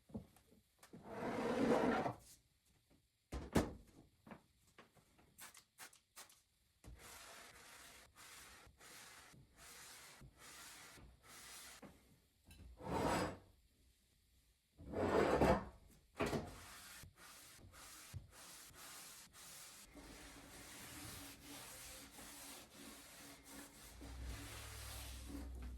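A cloth rubbing and wiping over a wooden surface in repeated strokes, with a few light knocks.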